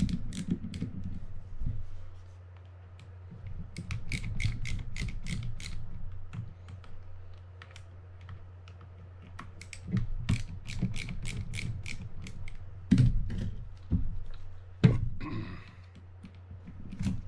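Light mechanical clicking in quick runs, a few seconds at a time, as a screwdriver works the handle screw loose on a Penn Rival 30LW levelwind reel, with two sharp knocks near the end and a steady low hum underneath.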